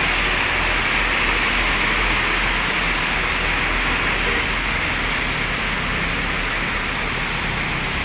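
High-deck coach bus moving slowly past at close range, its engine running low under a steady, loud hiss.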